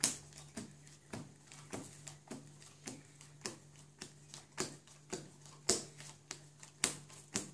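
Playing cards dealt one at a time onto a wooden tabletop, each landing with a light snap, a little under two a second in an even rhythm.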